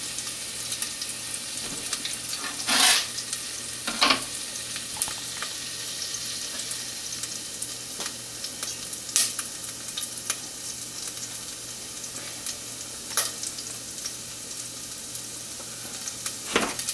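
Breaded crab cakes frying in a pan of butter and olive oil, a steady sizzle, with a few short knocks of utensils against the pan.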